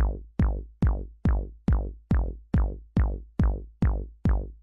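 Electronic music with a steady drum-machine beat: deep bass drums whose pitch drops fast, a little over two a second.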